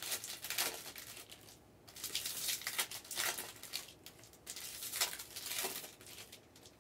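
Faint crinkling and rustling of packaging being handled, in several short irregular bursts.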